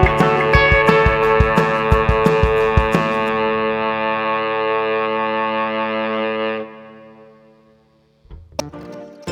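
Background music with a steady drum beat that stops about three seconds in. A held chord then fades out, and a new piece of music starts near the end.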